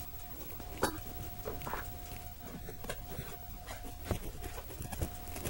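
Faint clicks and taps of test leads held against the pins of a gas furnace control-board relay while its coil is powered, over a faint steady high whine. No relay click comes: the coil is shorted and the relay does not switch.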